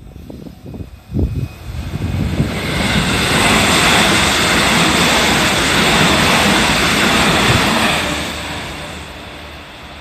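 JR 313 series electric multiple unit passing at speed. Its wheel-and-rail running noise builds over the first few seconds, holds loud for about five seconds as the cars go by, then fades away. A few low thumps come about a second in.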